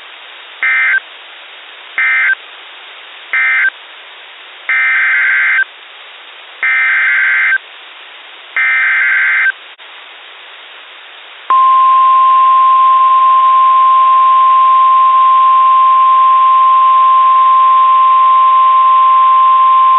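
NOAA Weather Radio EAS/SAME data bursts: three short end-of-message bursts close the previous alert, then three longer header bursts open the next one, over a steady hiss of receiver static. About eleven seconds in, the 1050 Hz weather radio warning alarm tone starts and holds steady.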